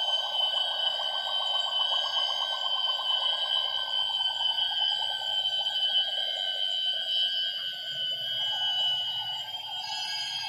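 Tropical rainforest insect chorus: several insects hold steady high-pitched tones, over a loud fast-pulsing buzz lower down that slowly drops in pitch and fades about halfway through.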